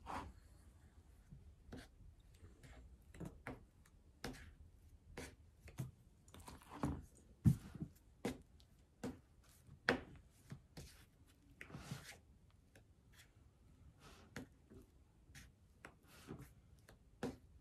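Faint, irregular scrapes and taps of a spreading tool working lightweight spackling over a round box as fake cake frosting, with a few longer scraping strokes about seven and twelve seconds in.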